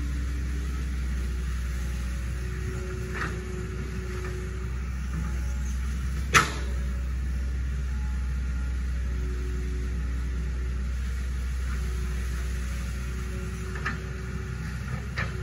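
Hitachi ZX110 excavator's diesel engine running with a low steady rumble, with one sharp knock about six seconds in and a few lighter clicks.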